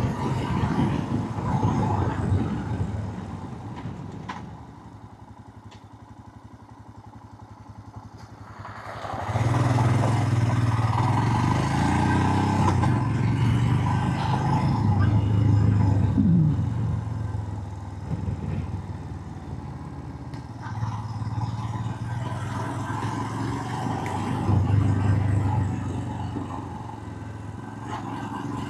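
Motorcycle engine and road noise while riding. It drops to a quieter stretch about four seconds in, then grows louder again as the engine pulls, rising and easing off a few times.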